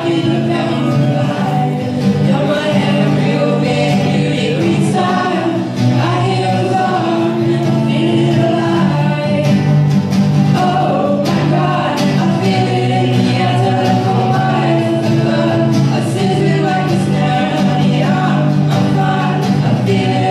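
Acoustic guitar strummed to accompany a group of voices singing a song into microphones.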